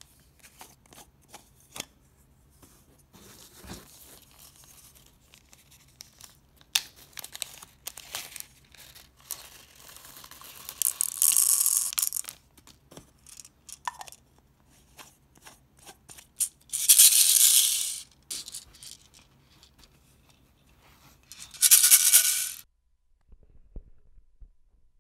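Small plastic sound balls rattling in and against a clear plastic BeatJack shaker capsule, with the clicks and taps of the capsule being handled. There are three loud bursts of bead rattle, the last one near the end, followed by a short near-silent stretch.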